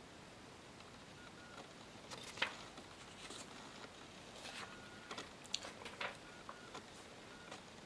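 Scattered light clicks and rustles of handwritten paper index cards being handled, with the sharpest clicks about two and a half and five and a half seconds in, over a faint steady room hiss.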